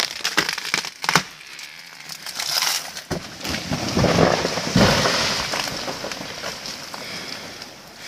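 Big fir tree falling: a few sharp cracks, then a rising rush of branches and a heavy crash about four to five seconds in as the trunk hits the slope, fading into the rattle of settling debris.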